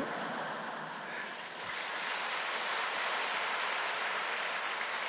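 A large congregation in a big hall reacting with a wash of crowd noise that swells about a second and a half in and begins to ease off near the end.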